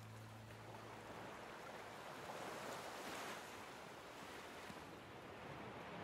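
Faint, steady wash of gentle waves on open water, swelling slightly midway, with the last of a low music note fading out about a second in.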